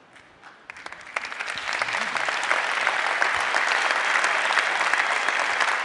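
Large audience applauding: a few scattered claps at first, swelling into full, sustained applause by about two seconds in.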